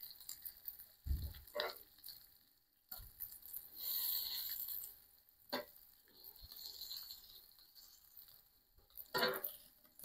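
Metal tongs clicking and scraping on a cast-iron grill grate as bacon is turned, with a short stretch of sizzling around four seconds in. Quiet overall, a few scattered clicks.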